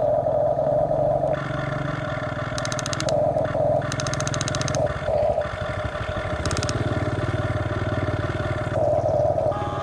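Remote-control toy excavator running: a steady motor drone with a higher whine that cuts in and out several times as the functions are worked, and two spells of rapid clicking from the gears in the middle.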